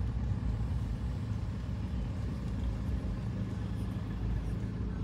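Car engine and road noise heard from inside the cabin as the car creeps forward in slow queuing traffic: a steady low hum.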